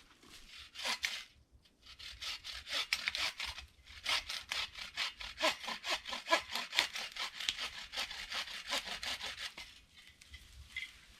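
A hand saw cutting through wood in quick, even back-and-forth strokes, about three or four a second. There is a short burst about a second in, and the steady sawing stops near the end.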